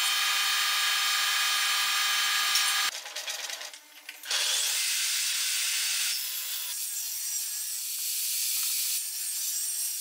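A power-tool motor whines steadily for about three seconds. After a short dip, a table saw cuts through a wooden board, with a dense rasping noise from about four seconds in.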